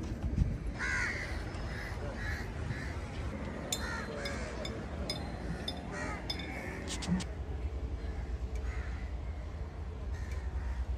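Crows cawing repeatedly in short calls, most of them in the first seven seconds, over a steady low rumble, with a few sharp clicks around the middle.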